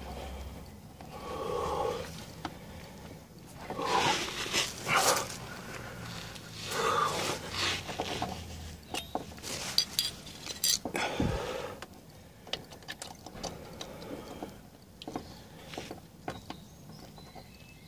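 Clicks, knocks and scrapes of hands working at a car's fog lamp and its wiring plug behind the front bumper, broken by several short groan-like vocal sounds.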